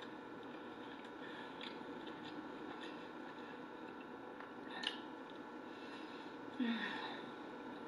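A person chewing food with her mouth closed: soft, wet mouth clicks over a steady, faint room hum, with one sharper click about five seconds in. Near the end comes a short low voiced sound from her, falling slightly in pitch.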